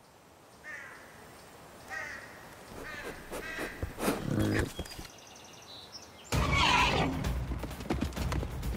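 Dubbed animal sound effects for a charging entelodont, a giant prehistoric boar-like predator. Several short pitched animal calls come in the first four seconds, the loudest about four seconds in. Then, about six seconds in, a sudden loud rush of running and grunting begins as the animal charges its prey.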